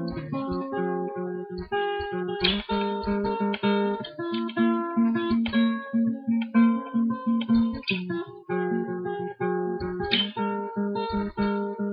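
Acoustic guitar with a capo, strummed and picked in a run of repeated ringing chords: a solo instrumental piece.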